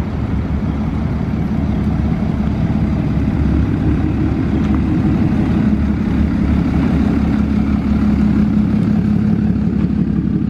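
Deleted 6.7 Cummins diesel of a lifted Ram dually running at low speed as the truck rolls closer, a steady low drone that gets a little louder in the second half.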